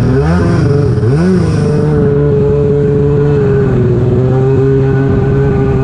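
Stand-up jet ski engine under way at speed: revving up and back down twice in quick succession, then running steadily at high revs.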